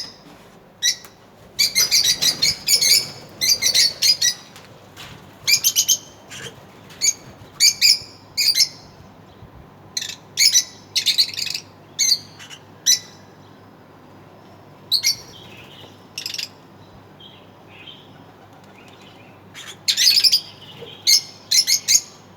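Pet lovebirds chirping in clusters of quick, shrill calls, with a quieter spell of fainter calls in the middle.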